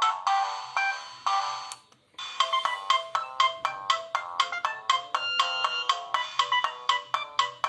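Siemens A51 mobile phone ringtones: one electronic melody fades out about two seconds in, and after a brief pause another starts, a run of quick bright notes at about five a second.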